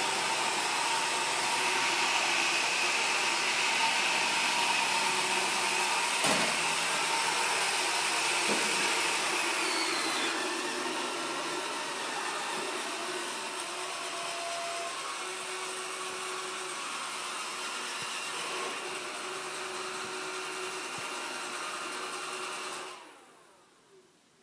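Roomba 400-series robot vacuum running while stuck on a towel, a steady whir with a hum of tones from its motors and brushes, with a sharp click about six seconds in. It drops a little in level about ten seconds in and shuts off near the end.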